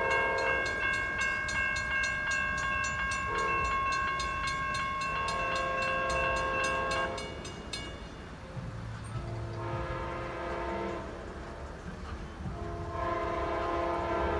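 Amtrak GE P42DC locomotive's multi-chime air horn blowing a long chord of about seven seconds whose notes shift as it is played, then two shorter blasts about ten and thirteen seconds in, over the rumble of the approaching train.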